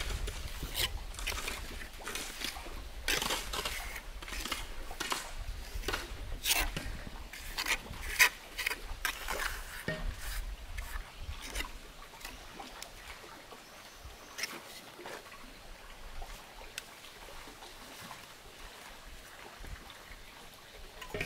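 Steel mason's trowel scraping and slapping wet cement mortar onto bricks in short, irregular strokes, busiest in the first twelve seconds and sparser after.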